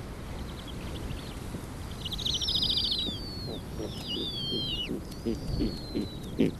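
Snowy owls at the nest: high-pitched calls that fall in pitch, with a brief fast trill about two seconds in, typical of owlets begging as a parent arrives with food. Short low pulses come a few times a second in the second half.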